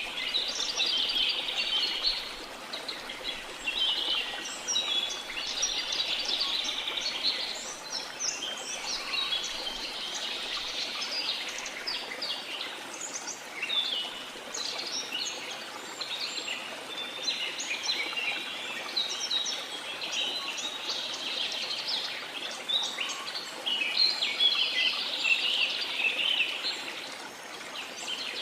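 A dense chorus of small birds chirping and twittering without a break, over a steady rushing wash of sea.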